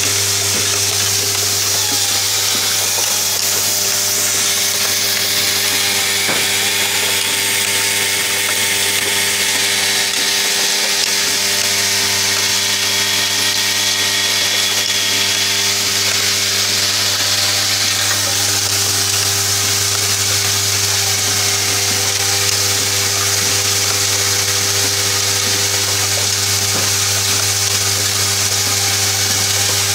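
Automated MCB box clamping and screw-driving machine running, with its vibratory bowl feeder feeding screws. It makes a steady low buzz with a high hiss over it, unchanged throughout.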